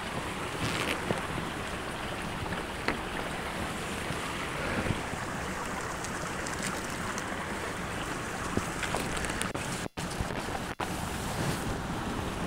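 Steady wind noise on the microphone, mixed with the rustling of leafy branches as they are hooked and pulled with a long pole, and a few light cracks. The sound cuts out for an instant twice near the end.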